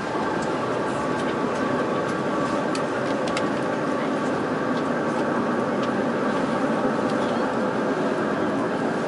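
Taiwan Railways Chu-Kuang express passenger coach running: a steady rumble of wheels on rail with a faint steady whine over it, and a few light clicks about three seconds in.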